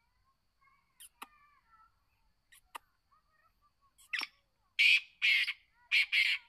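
Black francolin calling: four loud, harsh, rasping notes in quick succession in the last two seconds, after a few sharp clicks. Faint chirps of other small birds are heard behind.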